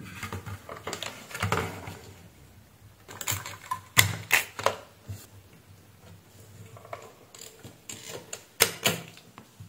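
Handheld electric desoldering gun working on circuit-board solder joints: its small suction pump hums in short spells as the trigger is pressed to suck up melted solder, amid sharp clicks and knocks of the tool against the board, the loudest about four seconds in and twice near the end.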